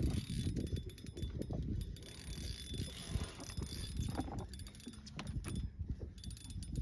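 Spinning reel being cranked to bring in line under load from a hooked lake trout, its gears giving a fast run of small ticks and rattles over a low rumble.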